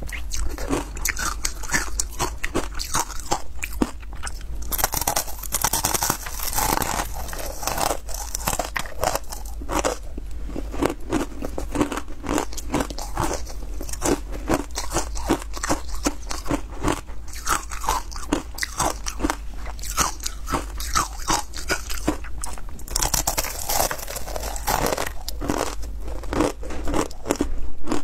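Ice chunks coated in matcha powder being bitten and chewed close to a clip-on microphone: a dense, unbroken run of crisp crunches.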